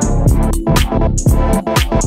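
Electronic background music with a fast drum-machine beat and heavy bass.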